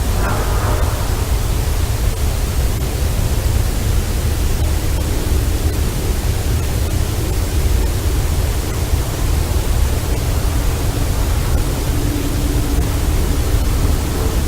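Steady loud hiss with a low rumble underneath, the background noise of an amplified outdoor recording. A faint, low, drawn-out tone rises out of the noise in the last few seconds.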